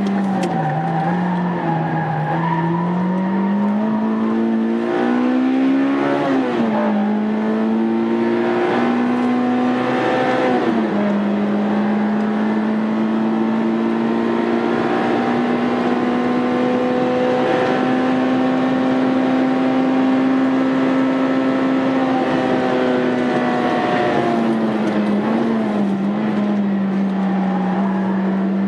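Honda Integra Type R's inline-four engine heard from inside the car at full throttle on a race track. The engine note climbs and drops sharply at each upshift, twice in the first third. Then it makes one long, slow climb through a gear before the revs fall and waver under braking near the end.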